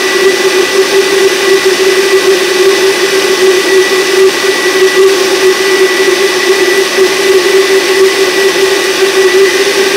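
Countertop blender with a glass jar running steadily, churning waste vegetable oil as methoxide is added to make biodiesel. A steady motor hum with a thin, high whine above it.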